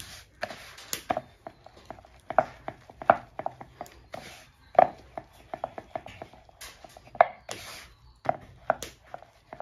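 Wooden rolling pin rolling and knocking on a round rolling board, flattening pitha dough folded inside a banana leaf. Irregular knocks come several a second, with short crackly rustles of the banana leaf between them.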